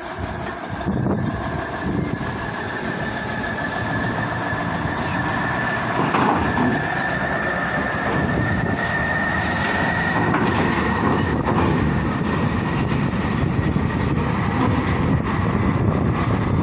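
Heavily loaded truck's diesel engine running as it drives onto the ferry, a steady rumble that grows louder over the first few seconds, with a steady high whine throughout.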